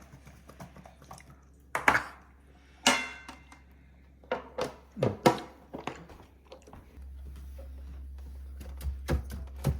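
Kitchen items being handled on a counter: a series of separate knocks and clatters, some with a short ring. A steady low hum starts about seven seconds in.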